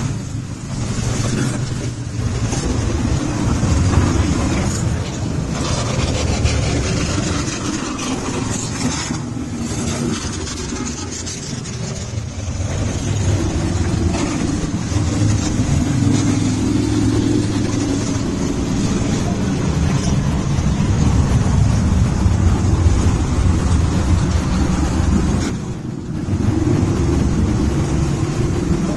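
A long procession of motorcycles riding past, their engines running continuously as one bike follows another.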